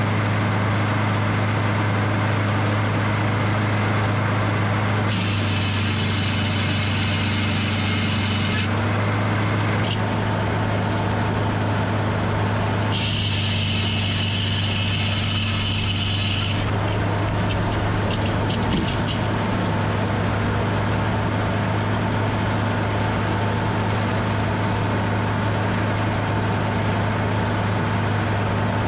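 Hydraulic circle sawmill running steadily with a low engine hum, joined twice for a few seconds by a high hissing noise.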